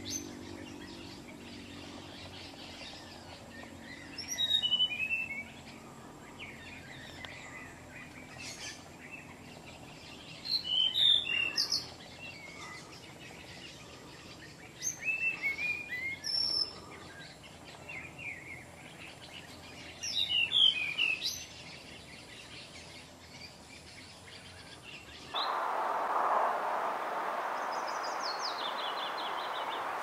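A blue flycatcher singing short, descending whistled phrases about every five seconds. Near the end the background becomes a steady hiss, and a European pied flycatcher sings a run of high, stepped notes over it.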